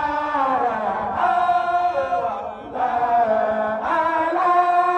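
Group of men chanting a dhikr in unison, holding long notes in phrases broken by short breaths every second or so.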